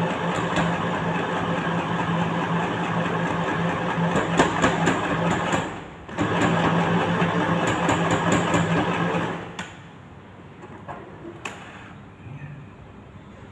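Electric sewing machine stitching steadily with a constant motor hum. It stops briefly about six seconds in, runs again for about three seconds, then stops, leaving a few faint clicks.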